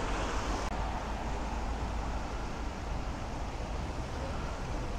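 Steady outdoor street ambience: a low wind rumble on the microphone with traffic noise from wet roads over it.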